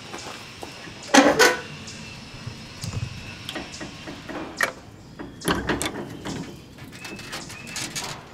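Wooden rabbit hutch being opened and handled: a loud double knock of its wooden door or lid about a second in, then smaller scattered knocks.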